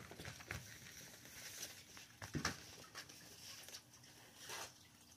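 Kittens scuffling in and against a crinkly fabric play tunnel: faint, irregular crinkling and rustling with scattered scratchy clicks, louder twice, about midway and near the end.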